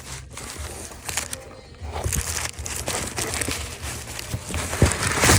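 Wrapping being crinkled and rustled as an item is unwrapped by hand, with a sharp knock near the end.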